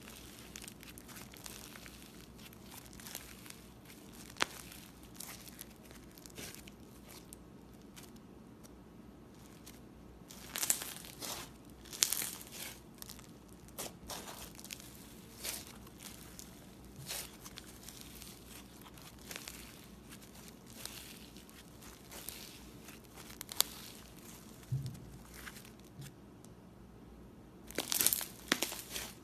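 Thick white slime squeezed, stretched and torn apart by hand, giving off soft crackling, crinkling sounds in scattered short bursts, with louder clusters about ten seconds in and again near the end.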